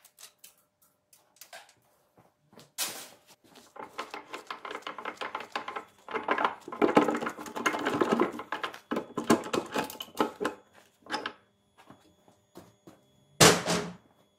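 Metal clinking, rattling and clanking as parts and tools are handled while a truck gearbox is stripped down, with ringing metallic tones through the busy middle stretch and one loud clank near the end.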